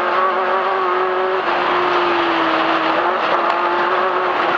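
Off-road desert race car's engine running at a steady speed over a constant rush of road noise. Its pitch dips slightly about a second and a half in and picks back up about three seconds in.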